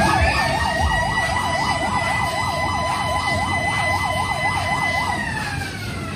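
Electronic siren: a fast warbling tone, about five cycles a second, over a steady higher tone. Near the end the warble stops and the higher tone glides down.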